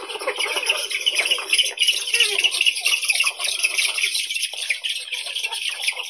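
A Eurasian spoonbill colony calling: many birds giving rapid short calls over one another in a dense, continuous chatter.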